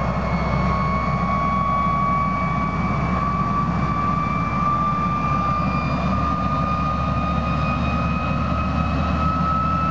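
Klimov VK-1 centrifugal-flow turbojet running on a ground test stand: a steady, loud jet rush with a whine that climbs slowly in pitch throughout.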